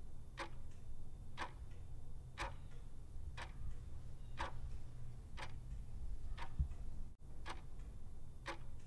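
Clock-tick countdown sound effect: a sharp tick about once a second over a low steady hum, timing the thinking period before the quiz answer is shown.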